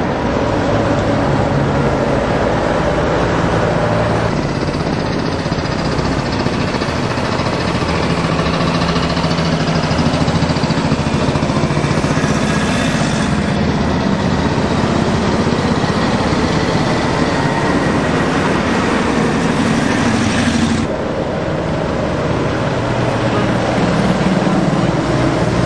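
Engines and tyres of a convoy of vintage WWII-era military vehicles, jeeps and canvas-topped trucks, driving past one after another in a steady drone. The sound shifts abruptly a few times.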